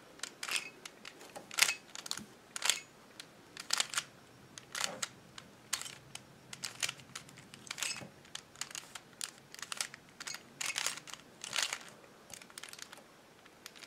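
Plastic 3x3 Rubik's cube being turned by hand through a corner-permuting algorithm: a long, irregular run of short clicks and clacks as the layers snap round, about one turn every half-second.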